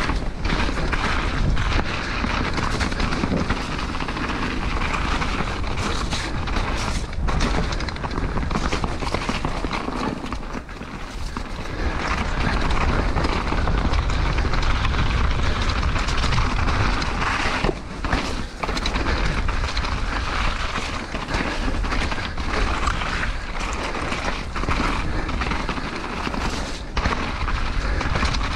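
Mountain bike descending a rough gravel and dirt forest trail at speed, heard from a helmet camera: wind rushing over the microphone with tyres crunching on loose stones and many knocks and rattles as the bike hits roots and bumps. There are brief dips about ten seconds in and again near eighteen seconds.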